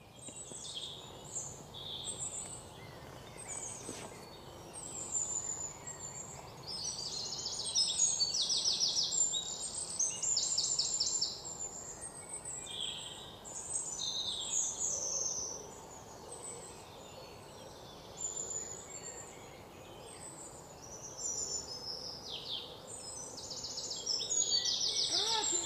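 Several forest birds calling and singing together: high chirps, short whistled notes and repeated fast trills, over a steady low background hiss.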